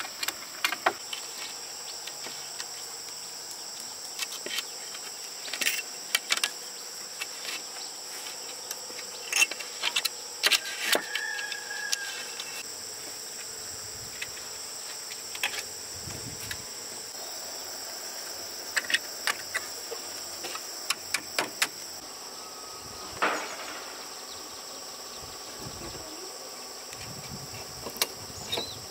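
Steady high-pitched insect chorus, with scattered sharp knocks and clicks from time to time.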